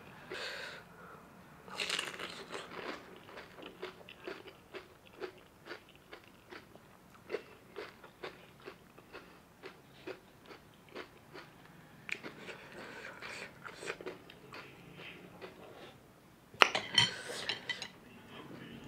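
Close-up eating sounds of crisp panipuri shells: crunching bites at first, then steady chewing at about two chews a second. Near the end comes a brief louder clatter.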